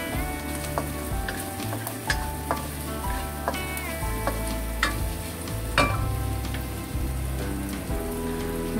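Sliced shallots, garlic and dried shrimp sizzling in hot oil in a stainless steel wok, with scattered sharp clicks of a spatula scraping and tapping the pan as they are stirred. This is the stage of sautéing the aromatics until fragrant.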